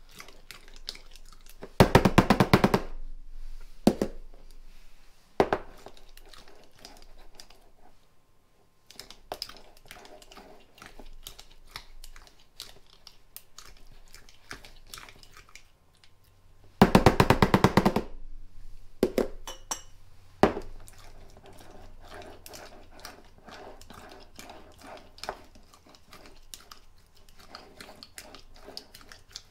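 Glass canning jars and utensils being handled as raw chicken is packed down into them. The quiet shuffling is broken by a few single knocks and by two loud rattles of about a second each, one near the start and one in the middle.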